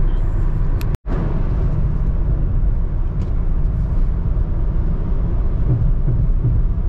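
Inside the cabin of a Honda City sedan at highway speed: a steady low rumble of road, tyre and engine noise. About a second in there is a momentary dropout to silence at a cut in the footage.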